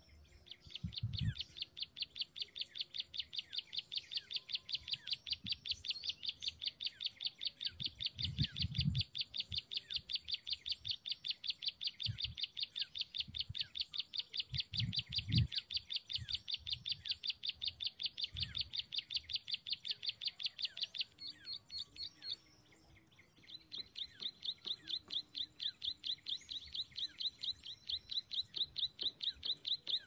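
Ciblek sawah (prinia) call played back as a lure: a fast, very even run of sharp high chirps, about five a second. It breaks off about two-thirds through and starts again a couple of seconds later. A few low thumps sound under it.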